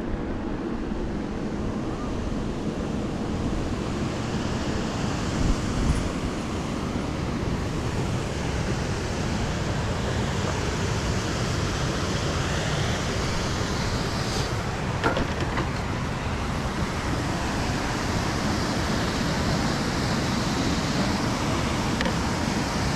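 Wind buffeting the microphone during an e-bike ride, a gusty low rumble over a steady rushing hiss that grows a little louder toward the end.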